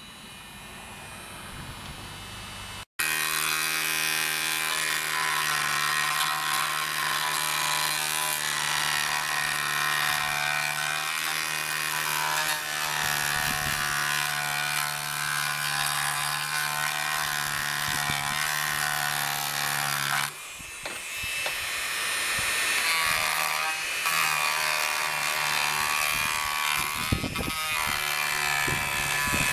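Dremel rotary tool running at high speed with a sanding drum, grinding down cured Flex-Tec HV epoxy filler on a wooden window sash. The whine starts abruptly about three seconds in, drops out briefly about twenty seconds in, then goes on with rougher scraping.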